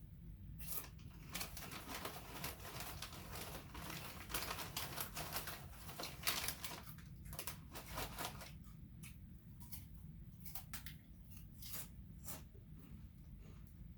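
Irregular crunching and crinkling of someone eating crunchy oven-baked barbecue potato chips and handling the chip bag, busiest in the first half.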